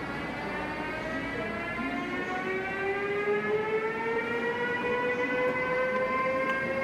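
ČD class 193 Siemens Vectron electric locomotive pulling in, its electric drive giving a whine of several tones together that rises slowly in pitch and grows louder about halfway through.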